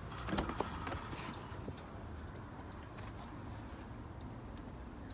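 Front door of a 2019 BMW X7 being unlatched and opened: a quick cluster of clicks from the handle and latch about half a second in, then a few faint ticks.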